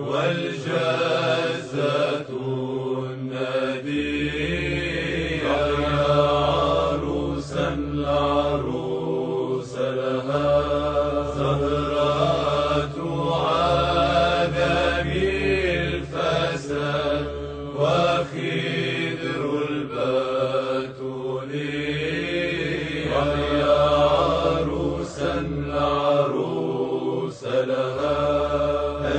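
Orthodox liturgical chant by voices, in long phrases that rise and fall, over a low held note that drops out now and then.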